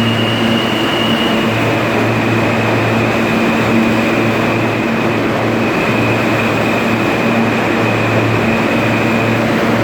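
New York City Subway R160A-2/R160B E train pulling out of an underground station: steady loud wheel-and-rail noise with a low hum and a steady high whine from the train's electric traction.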